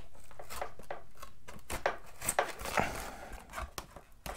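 EPO foam horizontal stabiliser of a Volantex Saber 920 being pushed into its slot in the foam fuselage: irregular squeaks, creaks and light clicks of foam rubbing on foam, with the glue making the fit grip tight.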